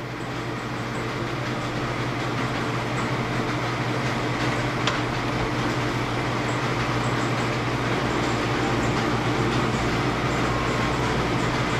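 Hydraulic pump and its electric motor on a stator-splitting press running with a steady hum, getting louder over the first couple of seconds and then holding level.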